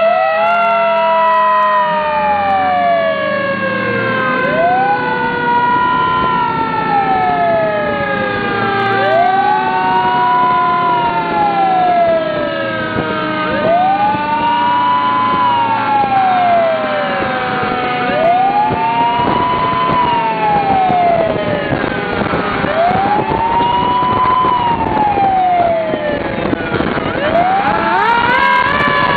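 Emergency sirens wailing: one rises and falls in pitch about every four and a half seconds, over a second, steadier siren tone that slowly drops in pitch.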